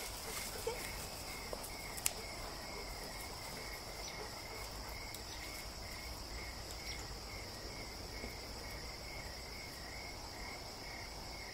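Insects in the woods: a steady high-pitched buzz with a lower, regular chirping about three times a second, cricket-like.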